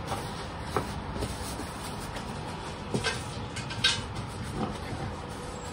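Soft rustling and brushing of a felt hat being handled and turned over, a few short scuffs over a steady background hum.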